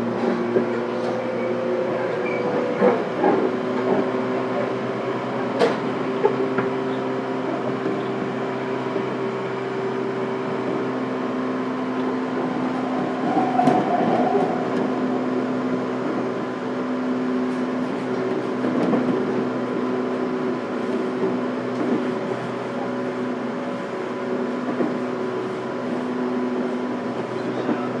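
Interior sound of a JR Kyushu 415 series 1500-subseries electric train car (MoHa 415-1512): a steady hum with several constant-pitch tones and a few light clicks, at an even level.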